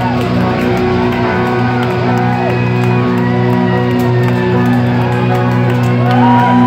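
Live rock band's electric guitars ringing out one steady, held chord through the amplifiers, with the crowd shouting and whooping over it.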